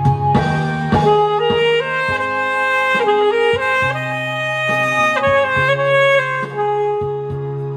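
Instrumental music: a sustained lead melody moving in clear steps over a steady bass line and a regular drum beat.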